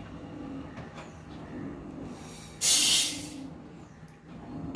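Roasted rice tipped out of a steel kadai into an aluminium pressure cooker: a loud rushing pour lasting about a second, midway through.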